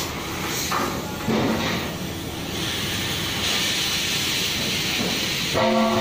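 Oxy-fuel cutting torch hissing steadily as it cuts steel plate; the hiss grows louder and brighter a little past halfway as the cut gets going. A brief steady pitched tone sounds near the end.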